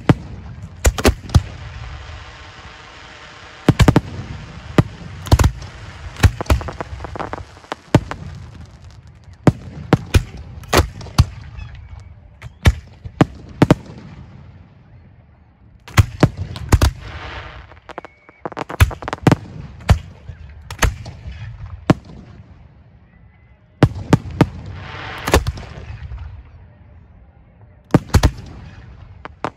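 Professional aerial display shells launching from racks of mortar tubes at close range: a rapid, irregular run of sharp bangs, some single and some in quick clusters, with a hissing crackle between them.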